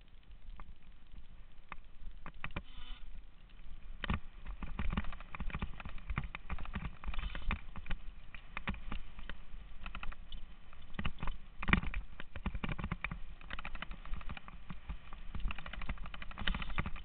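Mountain bike clattering down a rough dirt singletrack: a constant jumble of quick rattles and knocks over a low rumble, which grows louder and busier about four seconds in.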